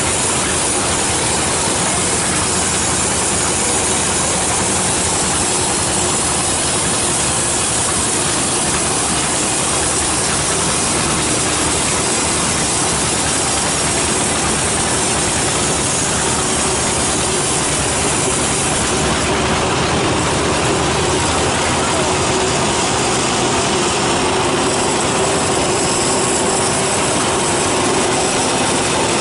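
Large sawmill log band saw running steadily while sawing a teak log: a loud, continuous mechanical noise with no let-up.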